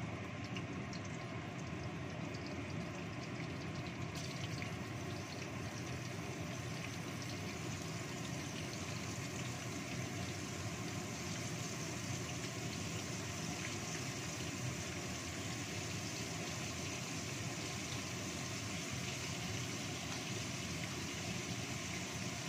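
Kitchen range-hood extractor fan running steadily while pieces of flour-coated fish sizzle and crackle in hot oil in a wok. The sizzle gets louder about four seconds in as more pieces go into the oil.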